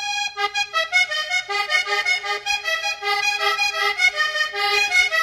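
Instrumental intro music: a quick melody of short notes, several a second, in a reedy, accordion-like tone.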